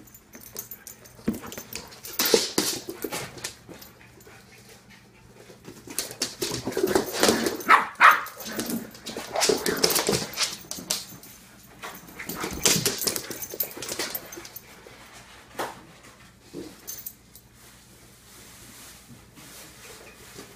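A small puppy and a large poodle playing, with bursts of barking and whimpering and quieter stretches between.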